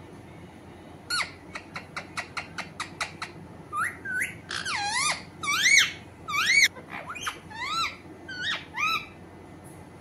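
Alexandrine parakeet calling: a quick run of about ten short chirps, then a string of squeaky whistled notes that rise and fall in pitch, the loudest a little past the middle.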